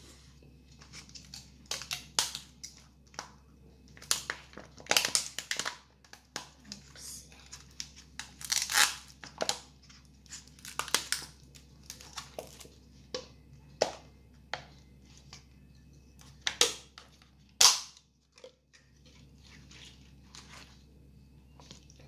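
Irregular crunching and crinkling as a plastic spoon stirs and scrapes through shaved ice in a plastic cup of halo-halo, with a few sharper crunches about five, nine and seventeen seconds in.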